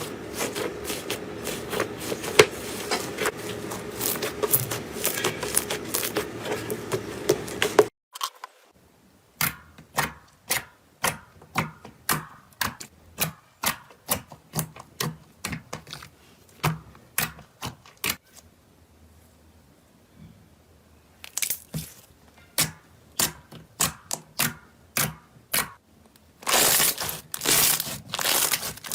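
Slime being squeezed and worked by hand: dense crackling for the first several seconds, then a long run of sharp separate pops about two a second, then crackling again near the end.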